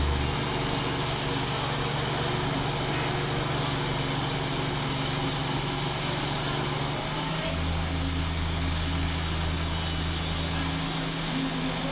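Heavy engine running steadily, a deep hum dropping away just after the start and coming back for about three seconds in the second half, under a constant mechanical drone.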